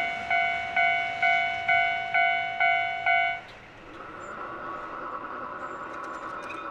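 Japanese level-crossing warning bell ringing its kan-kan strokes, about two a second, then stopping about three and a half seconds in. A quieter steady hum with a few pitches carries on after it.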